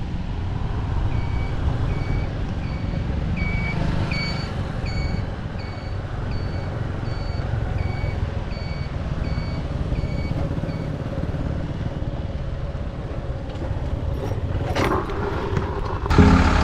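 Motorcycle riding through traffic: a steady engine and wind rumble, with an electronic beeper sounding about twice a second for the first ten seconds or so. A short rush of noise comes near the end.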